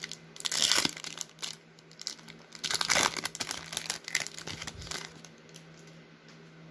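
Wrapper of a Topps baseball card pack crinkling and tearing as it is ripped open and peeled back by hand, in several irregular bursts, going quieter after about five seconds.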